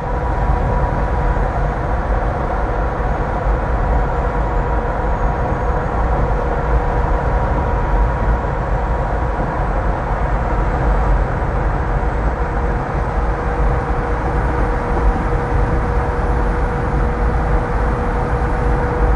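Kenworth W900 semi truck cruising at highway speed close alongside, a steady rumble of engine and tyres mixed with road noise, with a steady hum throughout.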